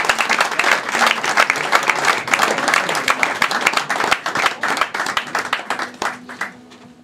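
Club audience applauding: dense clapping that thins out and dies away about six seconds in.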